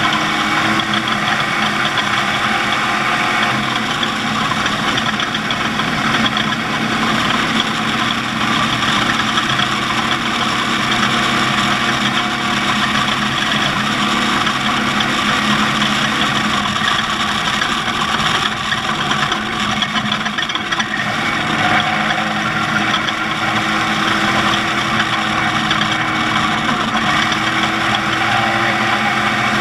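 Off-road race vehicle's engine running steadily, with a strong hiss of noise over it and small shifts in pitch.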